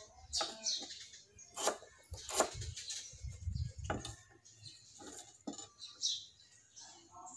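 Chef's knife chopping through root pieces onto a thick round wooden chopping block: about five separate knocks, roughly a second apart. Small birds chirp between the strokes.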